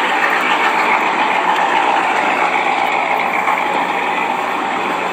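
Steady noise of a running vehicle engine, even and unbroken.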